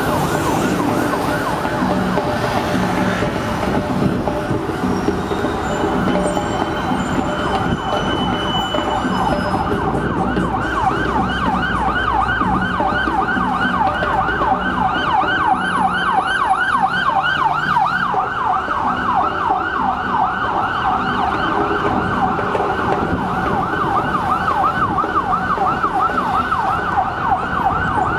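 Siren of a Metropolitan Police Vauxhall Astra response car on an emergency call, sounding a rapid yelp: a fast rising-and-falling whoop repeated several times a second, growing clearer about ten seconds in. Low rumble of bus and traffic engines underneath for the first half.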